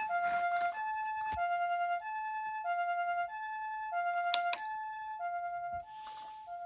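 Osaka Siren MK-10 electronic siren amplifier sounding the Japanese ambulance two-tone "pee-po" siren, alternating a high and a low tone about every 0.6 s. There is a sharp click about four seconds in, and the siren gets quieter near the end.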